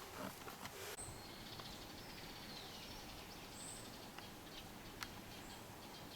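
Faint forest ambience with a few short, high bird chirps and one falling call, plus a soft click about five seconds in.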